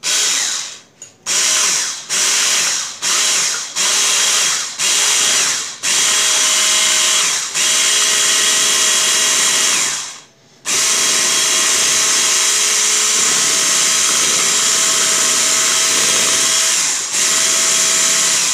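Electric hand mixer running, its beaters whipping egg whites and oil into a froth. It runs in short bursts of about a second for the first six seconds, then steadily, with a brief stop about ten seconds in.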